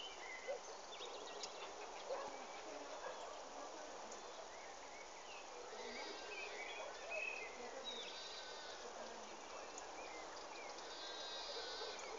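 Small birds chirping in short, scattered calls, with a few quick repeated trills, over a steady outdoor background hiss.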